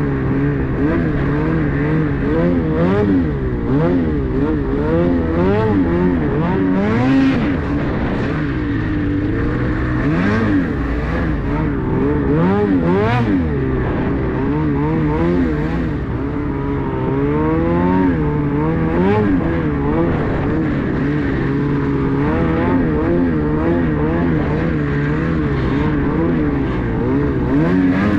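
Ski-Doo 850 two-stroke snowmobile engine running hard through deep snow, its pitch rising and falling every second or two as the throttle is worked on and off.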